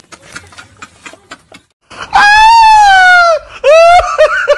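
A man's shrill, squealing laugh: one long, loud, slowly falling shriek, then a shorter one, then quick yelping bursts of laughter. Before it there are only faint clicks.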